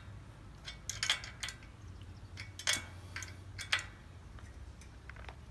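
A steel wrench clicking and clinking against an e-bike's front axle nut as the nut is tightened, about five sharp metallic clicks at uneven intervals.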